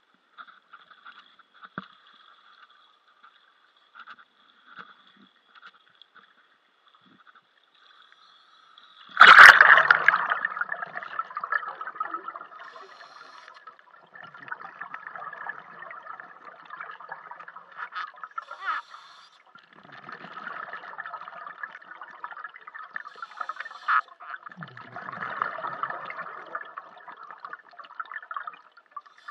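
A loud splash about nine seconds in as the camera goes into the pool water, then muffled underwater bubbling and gurgling that swells in bursts, like a scuba diver's exhaled bubbles.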